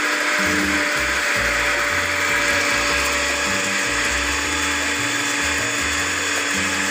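Electric blender running steadily with an even motor whine, blending egg white, garlic, lemon and salt into a garlic sauce.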